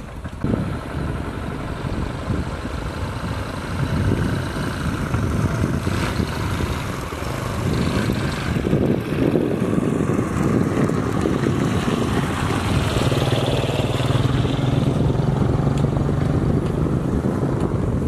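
A motor vehicle's engine running under a dense rumble, with a steady low hum coming in about two-thirds of the way through.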